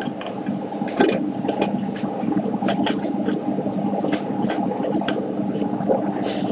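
A cockatoo's beak clicking and scraping on an aluminium Pepsi can as it tips the can up to drink, heard as scattered light clicks and taps over a steady hum.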